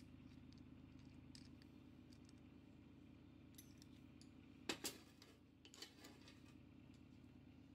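Steel axle parts and hand tools clicking and knocking on a steel welding table: faint scattered clicks, then two sharp metal knocks a fraction of a second apart just past halfway and a lighter one about a second later, over a low steady hum.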